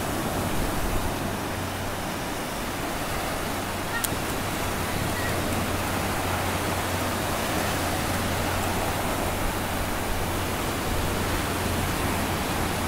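Small waves breaking and washing up a sandy beach: a steady, continuous rush of surf.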